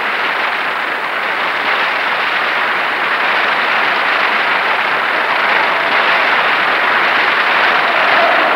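Large crowd applauding in a long, steady ovation. Near the end, crowd voices start to rise through the clapping.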